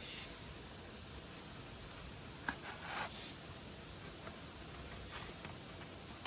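Quiet background with a sharp click about halfway through, followed by a short scraping rub, then a few fainter scrapes: small objects being handled.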